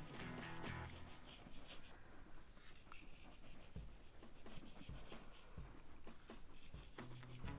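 Salt being sprinkled by hand over pounded raw chicken meat: a faint rustling with scattered small ticks as the grains fall. Soft background music can be heard in the first second.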